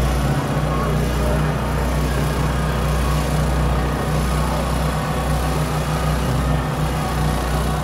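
A steady low engine drone under the murmur of a large outdoor crowd.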